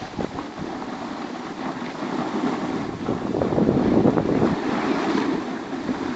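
Wind buffeting the microphone: a steady rushing noise that swells louder about three and a half seconds in and eases after five.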